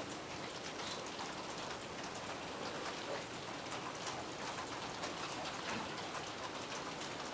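Several computer keyboards being typed on at once: a steady, overlapping patter of key clicks.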